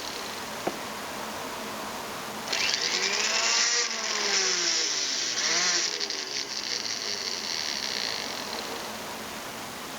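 Small high-speed power tool motor running, its whine rising and falling in pitch twice, louder for a few seconds in the middle.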